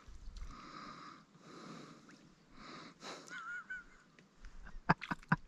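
Soft, slow breathing close to the microphone, with a brief wavering whistle-like sound about three seconds in and a few sharp clicks near the end.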